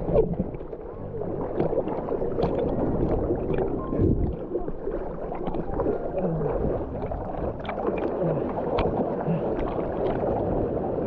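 Seawater sloshing and gurgling around a camera held at the surface by a swimmer, with many small splashes and ticks from the water against it.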